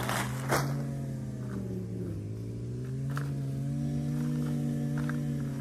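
An engine running steadily as a low, even drone; its pitch sags about two seconds in and then comes back up. Near the start there is a brief rush of potting soil poured from a bag.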